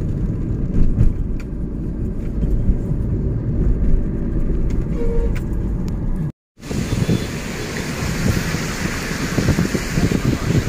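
A moving car heard from inside: a steady low rumble of engine and tyres on the road. It cuts out for a moment about six seconds in and comes back with more wind hiss.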